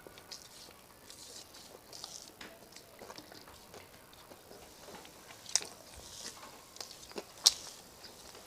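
Close-miked eating sounds: chewing and wet mouth smacks of someone eating rice with fish curry, with scattered small clicks and two sharper, louder clicks, one about halfway through and one about two-thirds of the way in.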